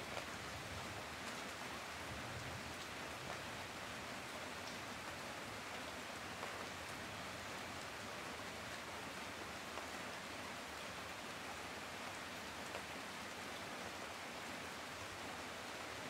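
Rain falling steadily, an even hiss with a few faint ticks of single drops.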